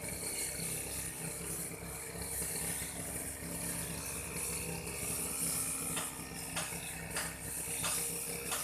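An old Aldo brush cutter's small engine running steadily, with a few sharp ticks near the end.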